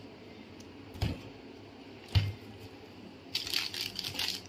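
Two soft knocks as a plastic jar is handled and set down on a table, then plastic packets crinkling as they are picked up.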